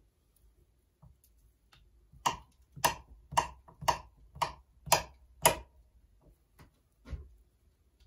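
Seven sharp knocks in an even rhythm, about two a second, followed by one fainter knock a moment later.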